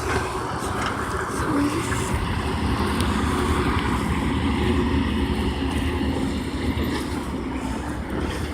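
Heavy truck driving past on the highway: a steady engine drone with low rumble and tyre noise, swelling slightly mid-way.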